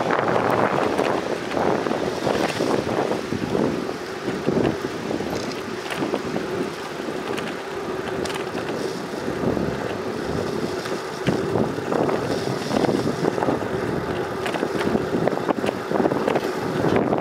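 Wind rushing over the microphone of a moving bicycle, mixed with the rolling noise of tyres on a paved path, a steady low hum and scattered small rattles.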